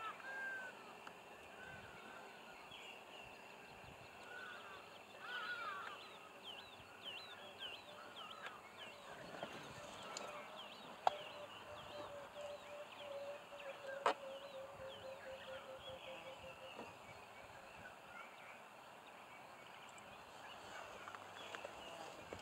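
Outdoor animal calls: short, high, sliding chirps repeated in clusters over a steady high hum. A low pulsing trill runs for several seconds in the middle, and two sharp clicks come about halfway through.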